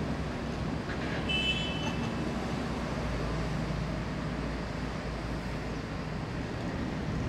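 Heavy diesel machinery running steadily, a low engine drone with no sharp knocks or impacts. A brief high-pitched squeal about a second in.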